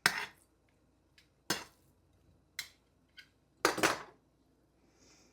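A kitchen utensil clinking and tapping against a dish a handful of times while seasoned fish fillets are flipped over. The loudest clatter comes about two-thirds of the way through.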